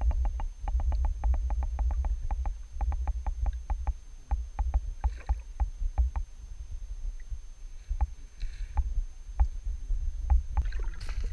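River current heard underwater through a GoPro's waterproof housing: a steady low rumble with a run of sharp clicks, quick and regular at first, then slowing to scattered ticks. A short splashy hiss comes near the end.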